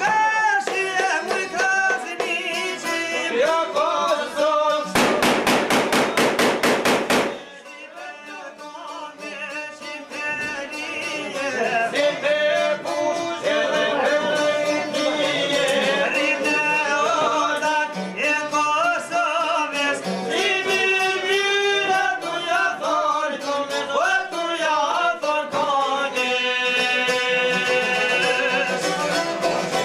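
Albanian folk song: men's voices singing in a high, ornamented style over a strummed long-necked lute and a violin. About five seconds in, a harsh rapid buzzing stutter cuts across the music for about two seconds, and the music is quieter for a few seconds after it.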